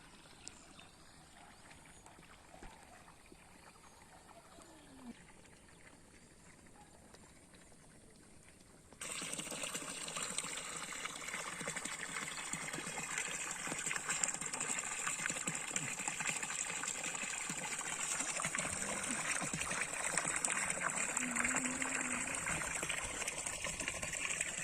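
Rain falling steadily. It is faint at first, then much louder from about nine seconds in, a dense crackling patter.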